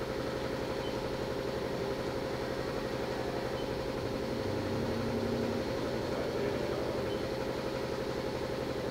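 Air compressor running steadily with a fast, even pulsing, over which the Haas VF6/40's table moves along its X axis and its telescopic steel way covers slide. A slight low swell comes about halfway through.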